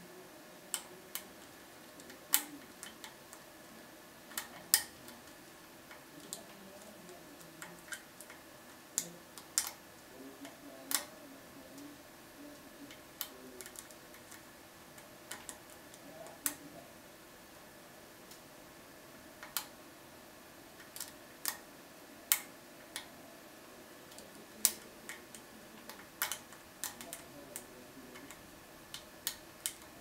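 Light metallic clicks and ticks at irregular intervals, sometimes in quick pairs and sometimes with pauses of a few seconds: a lock pick raking and lifting the pins of a five-pin CES euro cylinder under tension from a tension wrench.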